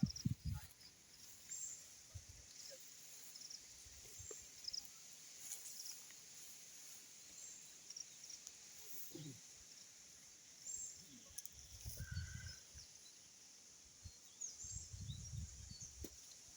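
Faint outdoor background with scattered short, high chirps from small birds. A few low rumbles come in near the middle and again near the end.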